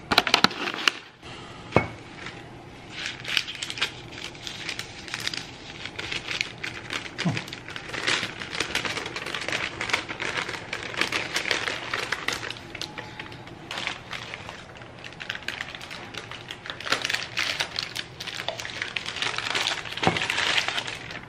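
Parchment paper crinkling and rustling on and off as it is handled, with a few light knocks.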